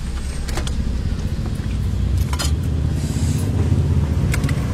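Low, steady rumble of a motor vehicle engine running, with a few short sharp clicks over it.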